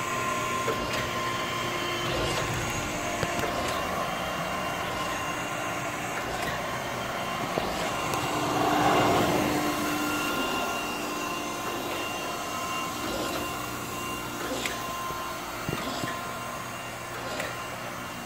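Okamoto 124N reciprocating surface grinder running: a steady mechanical hum with a few steady tones, which swells louder for a couple of seconds about halfway through.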